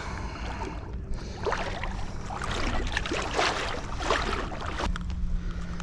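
Surf washing at the shoreline with wind on the microphone, and a patch of crackling noise in the middle; a faint steady hum comes in near the end.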